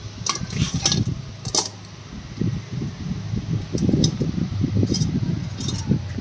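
Metal clicks and clinks of a hinged wire grill basket as its handle clasp is worked open while it rests on an aluminium pot, a cluster in the first second and a half and a few more later on. A low uneven rumble runs underneath.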